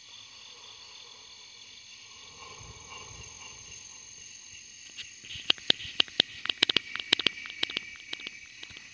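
Night insect chorus: several steady, high-pitched trills running together. About halfway in, a rapid run of sharp clicks and knocks starts and becomes the loudest sound.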